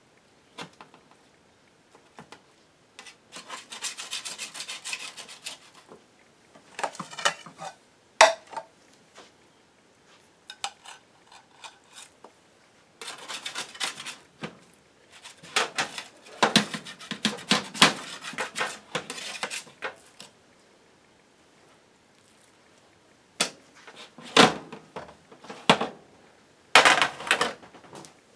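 Metal spatula scraping and clinking against a metal baking sheet while pieces of baked omelet are cut and lifted out. It comes in bursts of scraping with pauses between, and a few sharp clinks.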